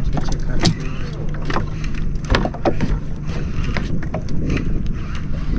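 Small fishing boat's motor running with a steady low hum, under frequent sharp knocks and clicks from the hull and gear on deck.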